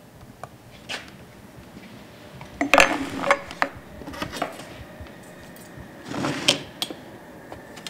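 Bent copper pipe and a steel rule being handled on a wooden board: short metallic clinks and knocks, in a cluster about three seconds in and another about six seconds in.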